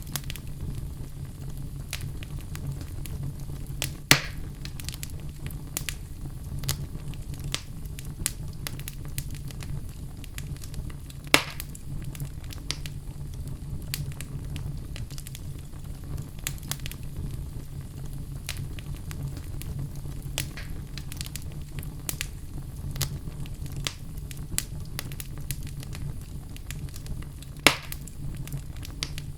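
Wood fire burning in a fireplace: a steady low rumble of flames with frequent small crackles, and three loud sharp pops, about 4, 11 and 28 seconds in.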